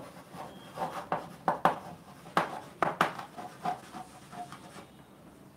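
Chalk writing on a chalkboard: a run of sharp taps and short scratches as the words are written, dying away after about four and a half seconds.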